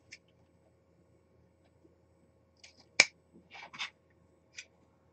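Scissors cutting wired ribbon ends: faint snips near the start, a sharp click about three seconds in, then two quick snips.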